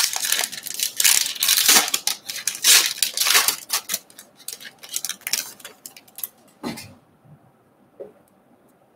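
Foil trading-card pack wrapper being torn open and peeled off a stack of cards: a dense run of crinkling and tearing for about four seconds, thinning to scattered rustles that stop about seven seconds in.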